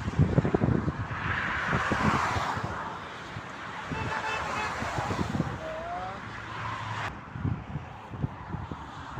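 Motorway traffic passing, with a vehicle's tyre hiss swelling and fading over the first couple of seconds. Wind buffets the microphone with irregular low thumps.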